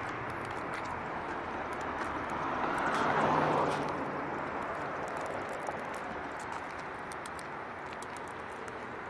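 Road traffic noise with a vehicle passing, swelling about three seconds in and fading away, over faint irregular taps of walking on the sidewalk.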